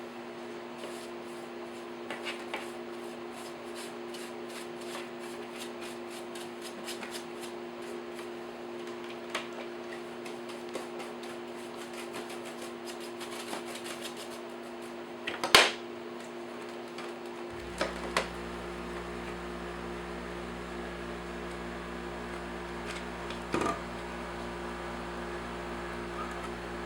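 Plastic parts of a Bissell upright vacuum cleaner being handled and pulled apart: many small rapid clicks and rubbing, then one loud sharp snap about midway, with a few more knocks later, over a steady electrical hum that gains a deeper drone a little past the middle.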